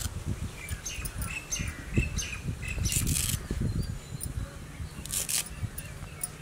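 Leafy greens being sliced on an upright curved kitchen blade, with crisp rustling cuts and light knocks of the stalks against the blade and board. A bird chirps in a quick series of short notes about a second in.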